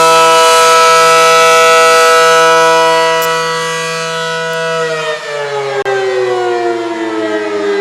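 Federal Signal Allertor outdoor tornado warning siren sounding a steady alert tone. About five seconds in its pitch starts falling steadily as it winds down at the end of the alert signal.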